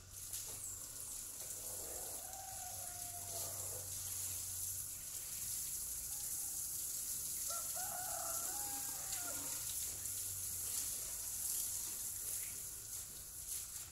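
Steady hiss of a garden hose spraying water onto plants, with a rooster crowing twice over it, about two seconds in and again about eight seconds in.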